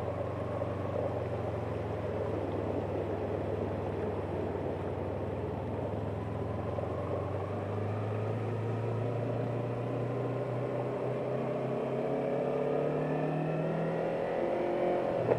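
Yamaha R3 motorcycle's parallel-twin engine running at low, steady revs while the front wheel sprays through flood water. From about halfway in, the engine note rises steadily as the bike accelerates.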